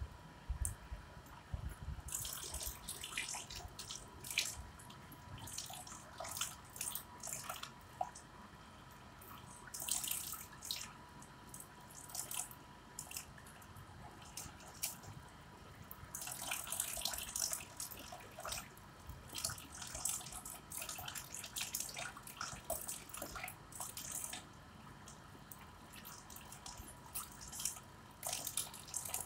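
Water trickling from a wall tap into a plastic tub of water. Irregular splashes and drips come in bursts every few seconds.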